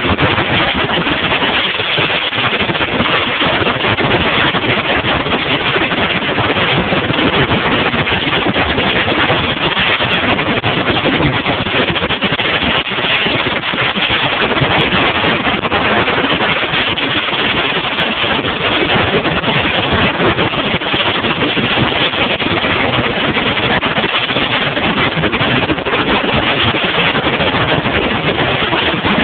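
Bass boat running under way on open water: a steady rush of wind on the microphone over the outboard motor's drone.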